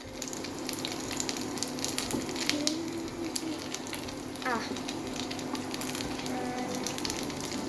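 Dumplings frying in oil in a pan: a steady sizzle with many small crackles and pops of spattering oil.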